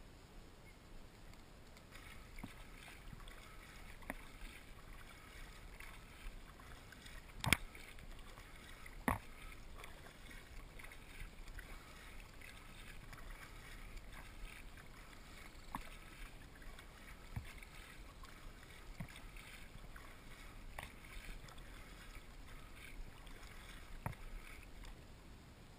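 Kayak paddle strokes in calm water, faint and steady, with a few sharp knocks scattered through; the two loudest come about seven and nine seconds in.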